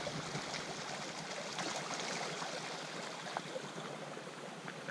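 Steady, even rush of running water, with a few faint ticks over it.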